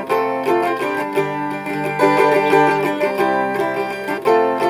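Tenor mandola played alone, a simple repetitive plucked pattern of ringing, bell-like strings.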